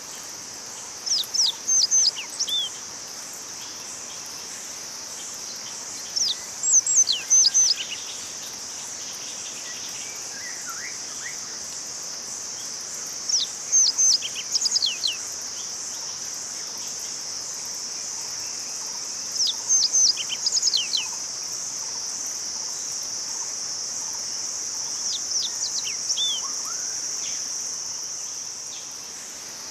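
A small songbird singing short phrases of high, quickly falling notes, five times, about every six seconds, over a steady high-pitched insect drone. The bird may be a Yellow Bunting, but the recordist is unsure of the species.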